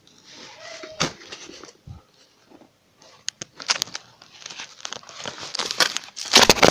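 Kettle packaging being pulled, torn and crumpled by hand: a run of rustling and ripping noises, sparse at first and busier in the second half, with the loudest rip near the end. The tight packing is not giving way.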